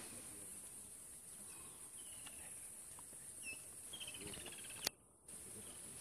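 Bush ambience: a steady high-pitched drone of insects with scattered short bird chirps and a rattling bird trill about four seconds in. A sharp click near five seconds in is followed by a brief moment of near silence.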